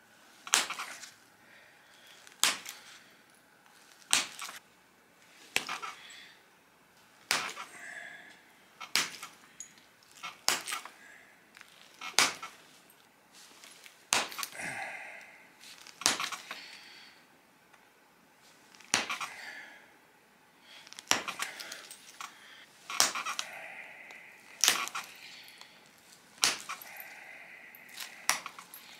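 Pressure flaking a stone biface with an antler tine: a sharp snap each time a flake pops off the edge, about one every one and a half to two seconds, with faint scraping of the tool between them.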